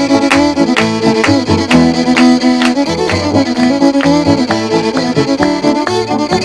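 Fiddle playing a quick novelty contest tune, many short notes in a row over a steady beat of about three strikes a second.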